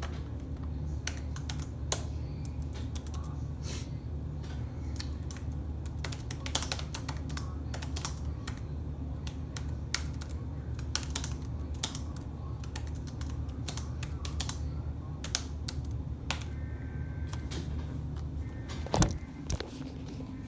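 Typing on a computer keyboard: irregular keystroke clicks over a steady low hum, with one louder knock near the end.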